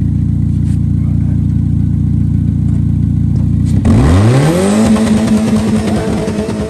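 Dodge Neon four-cylinder engine idling steadily, then about four seconds in the throttle is floored and the revs climb steeply for about a second and hold at a high, steady pitch near redline.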